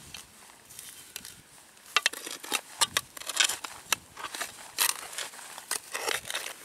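Small digging spade cutting into turf and flinty soil: a run of crunching scrapes and gritty clicks as the blade is pushed in and levers earth out. The noises come thickly from about two seconds in.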